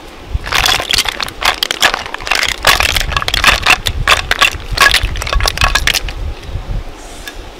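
Boiled river snail shells clattering as they are tipped out of a clay pot into a wicker basket. It is a dense run of hard clicks and knocks that starts about half a second in and stops about six seconds in.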